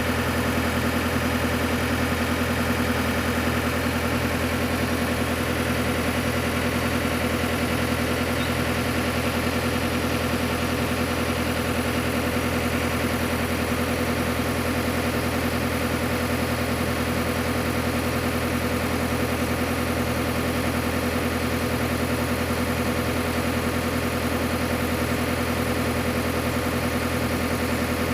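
JCB backhoe loader's diesel engine idling, a steady unchanging hum with no revving.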